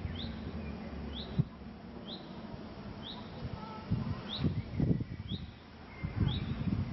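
A bird repeating one short, rising chirp about once a second, over low rustling and a few soft knocks.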